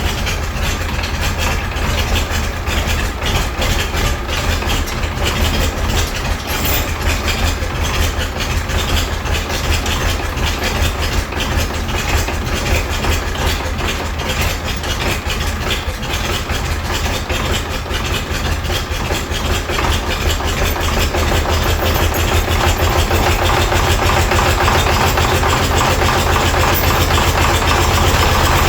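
Tractor engine running steadily at low revs, growing louder about two-thirds of the way through.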